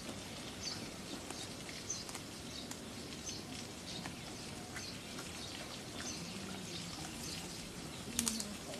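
Outdoor ambience with small birds chirping repeatedly against a steady background hiss, scattered faint clicks, and a sharp double click near the end.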